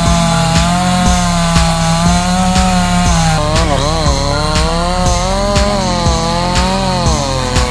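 A chainsaw running while cutting wood, its pitch wavering up and down under load. Background music with a steady beat of about two beats a second plays over it.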